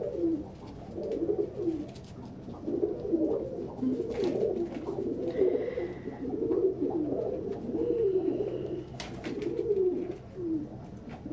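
Several pigeons cooing over one another in near-continuous, low, rolling coos. Two sharp taps come through, about four and nine seconds in.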